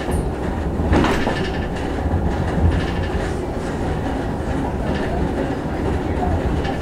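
Sakamoto Cable funicular car running up its track, heard from inside the car: a steady low rumble of wheels on rail with light rattling, and a sharper clack about a second in.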